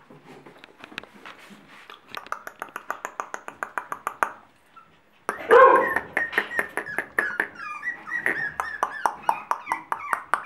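Month-old Staffordshire bull terrier puppies whining and yipping, with a loud yelp about five seconds in followed by a string of short high whines. Before that, a quick run of clicks, about eight a second, for a couple of seconds.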